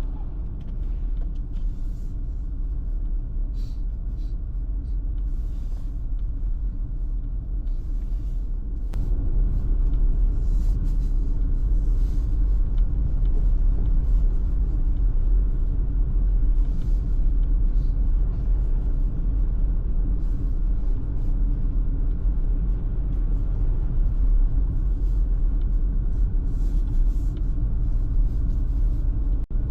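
Steady low rumble of a car driving, engine and tyre noise together, growing louder about nine seconds in, with a split-second dropout near the end.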